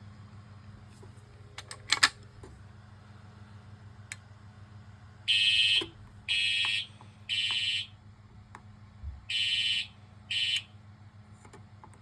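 Fire alarm horn sounding in a temporal-three evacuation pattern: three short high blasts about a second apart, a pause, then two more before it stops. A low steady hum runs underneath, with a couple of clicks about two seconds in.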